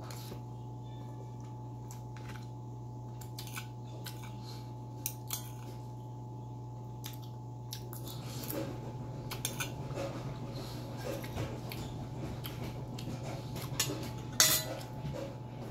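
Metal spoon and fork clinking and scraping against ceramic plates of rice and ground pork while eating, in scattered sharp clicks with one louder clink near the end. Chewing is audible from about halfway, over a steady low hum.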